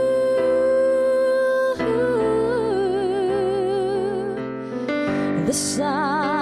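A woman sings a slow, tender song into a microphone, accompanied by piano. She holds one long note for the first couple of seconds, then sings a phrase with vibrato on the held notes. A short breath pause comes just before the next phrase near the end.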